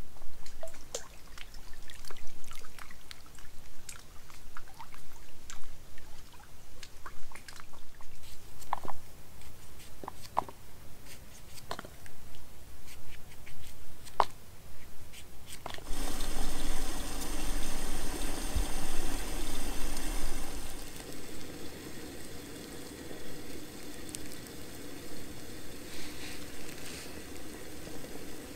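Scattered small clicks and taps, then about halfway a steady hiss starts suddenly, louder for its first few seconds: a camping stove heating a kettle of water toward the boil.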